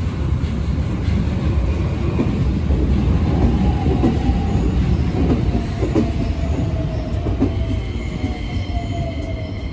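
Keikyu 1000-series electric train running along the platform: a heavy wheel rumble with clicks over the rail joints, and a whine that falls slowly in pitch as the train slows. High, steady squealing comes in near the end as it draws to a stop.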